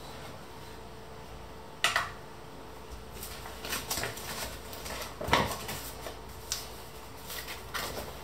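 A stainless steel mixing bowl knocked and set down with one sharp clank about two seconds in, then irregular crinkling and rustling of a paper bag being handled and opened, loudest a little past the middle. A faint steady hum runs underneath.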